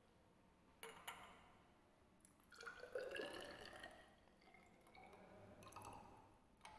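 Alcohol poured from a small glass beaker into a narrow glass measuring cylinder, a faint trickle whose pitch rises slowly as the cylinder fills. Two light glass clinks come about a second in.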